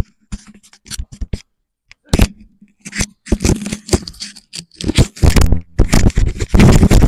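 Handling noise on a DJI wireless microphone: irregular rubbing, scraping and knocking, a few scattered knocks at first, then dense from about three seconds in.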